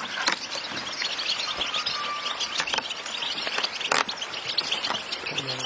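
A dense chorus of many caged European goldfinches twittering and chirping all at once. A sharp knock sounds about four seconds in, with a few lighter clicks around it.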